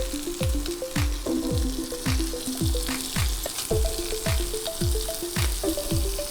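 Background music with a deep falling bass drum about twice a second and a short stepping melody, over the steady sizzle of onions and bean sprouts frying in oil in a pan.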